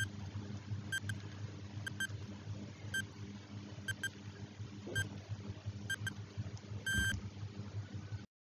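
Countdown timer sound effect giving a short high beep once a second, with a longer, louder beep as it reaches zero about seven seconds in. A steady low hum runs underneath.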